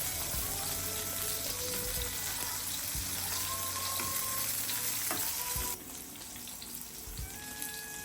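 Food sizzling in a frying pan, with soft music behind it. The sizzle turns abruptly quieter about six seconds in.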